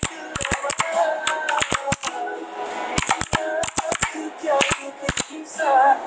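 Sharp clicks and taps in irregular clusters, over background music with steady held notes.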